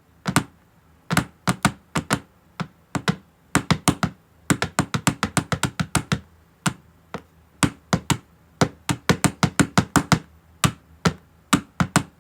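Improvised drumming: hands tapping and knocking on a hard surface in quick, uneven clusters of sharp strikes, standing in for a drum.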